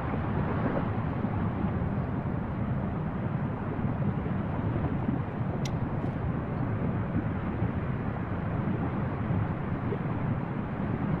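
Steady low rumble of an erupting fissure vent spattering lava, mixed with wind on the microphone. A single short tick comes a little past halfway.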